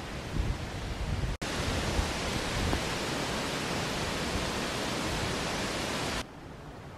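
Outdoor wind noise. For about the first second and a half, low gusts buffet the microphone. After a brief cut, a steady, even rushing hiss takes over, and it drops to a quieter hiss near the end.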